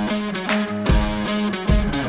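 Background rock music with electric guitar over a steady drum beat.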